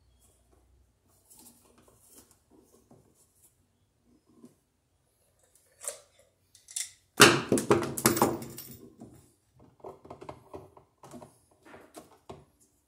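Hand tools clattering and rattling as they are picked up, with a loud cluster of strikes about seven seconds in lasting a couple of seconds. Light clicks and scrapes of a tool working wires at an electrical box come before and after it.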